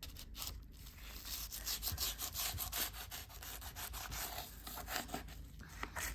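Scrubbing: many quick, irregular rubbing strokes on a hard surface.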